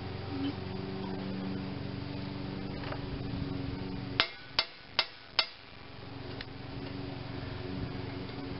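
Four sharp metallic taps about 0.4 s apart, from a hammer striking a hex bit seated in a stubborn screw on an Onan B48M engine's flywheel screen hub, to drive the bit home before trying to turn the screw. A steady low hum underlies the first half.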